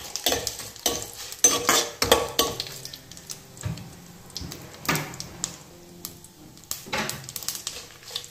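Steel ladle stirring and scraping in a kadai, with irregular clinks against the metal, over the sizzle of dry red chillies, cumin and mustard seeds frying in ghee for a tempering.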